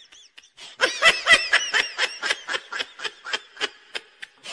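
High-pitched laughter: a quick run of short, rhythmic 'ha' pulses that starts a little under a second in, after a brief quiet moment.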